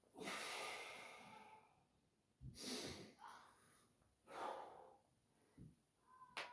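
Heavy, laboured breathing from exertion during a hard set of weighted pistol squats: three long, forceful exhales about two seconds apart.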